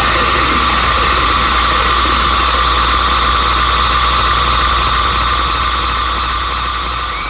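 Sustained wall of electric guitar feedback and amplifier noise left ringing at the end of a rock set: a steady, loud hiss-like drone with a low hum under it, starting to fade near the end.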